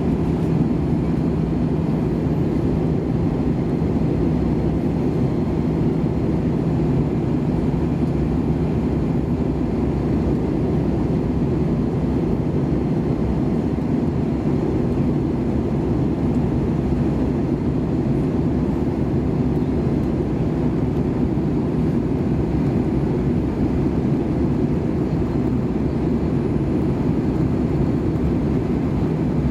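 Airbus A320 cabin noise in flight: a steady low rush of air and engine noise with a constant low hum, unchanging throughout.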